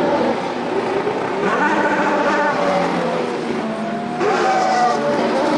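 Several 2019 Formula 1 cars' turbocharged 1.6-litre V6 hybrid engines revving hard and accelerating away on practice starts, one after another. Their overlapping notes climb in pitch as each car pulls away, with a fresh rising note about four seconds in.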